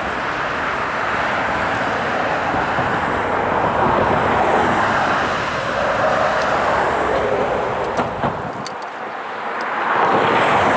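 Morristown & Erie ALCo diesel locomotive approaching, a steady engine rumble that swells a little near the end. A few faint clicks about eight to nine seconds in.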